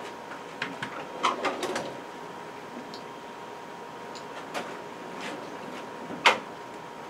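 Small plastic lawnmower carburetor parts clicking and knocking as they are handled and fitted together, then one sharp snap of the plastic about six seconds in as the parts are worked with pliers.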